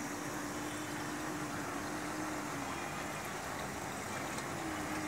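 Steady hiss of water circulating through hydroponic grow pipes, with a low steady hum that stops about halfway through and comes back briefly near the end.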